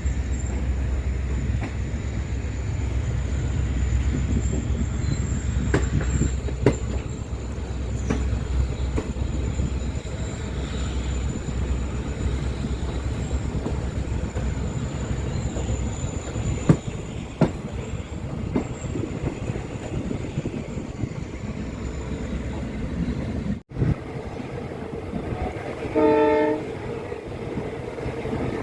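Express train running on rails: a steady low rumble with scattered sharp clacks of wheels over rail joints. Near the end, after a brief break, one short train horn blast of about half a second.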